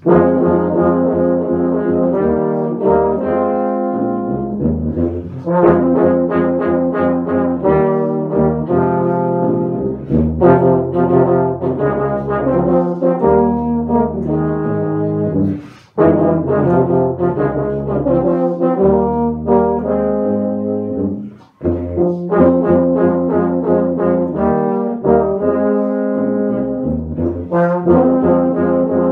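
A low brass quartet led by two tubas plays a piece together in harmony, with sustained chords. The music breaks off briefly twice, about halfway through and again a few seconds later, between phrases.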